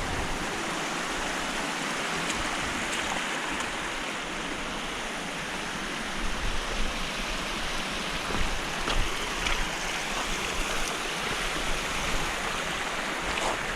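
Steady rush of flowing water from a canyon stream.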